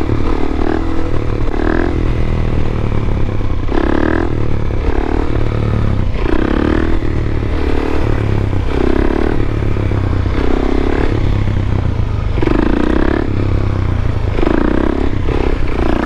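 A 2020 Suzuki DR-Z400SM's single-cylinder four-stroke engine running loud through an aftermarket FMF Powercore 4 exhaust while being ridden. The throttle is opened and closed in repeated short bursts, one every second or two, and the pitch rises and falls with each burst.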